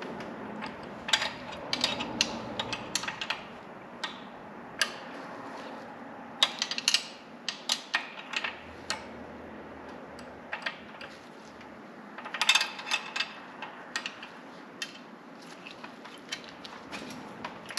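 Hand socket ratchet clicking in several short bursts of quick clicks, tightening a bolt on a brake line hold-down on the rear axle, with a few single metal clicks in between.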